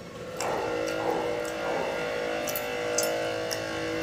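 A steady hum of several held tones at once starts about half a second in and lasts to the end, with a few sharp wet clicks of chewing and lip-smacking on top.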